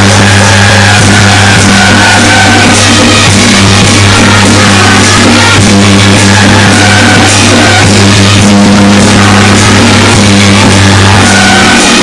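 Loud, continuous music with a steady low drone and a melody line over it.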